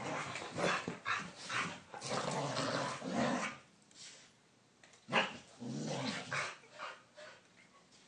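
Dogs play-wrestling, growling and barking in bursts, with a lull around four seconds in and a sharp yip just after five seconds; it quiets near the end.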